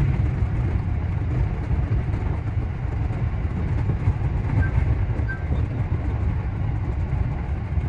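JR Central 315 series electric train running along the line: a steady low rumble of wheels and running gear, heard from inside the train.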